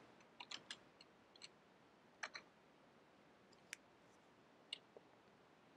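Faint computer keyboard keystrokes: a quick run of three or four clicks about half a second in, a pair a little after two seconds, then a few single sharp clicks near the end, with near silence between.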